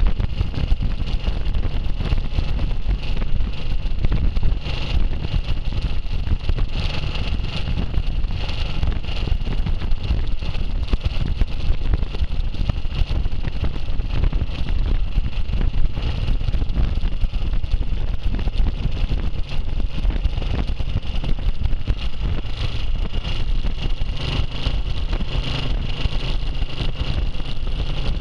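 Classic motorcycle running along the road at steady speed, its engine and road noise mixed with heavy wind rumble on the bike-mounted microphone.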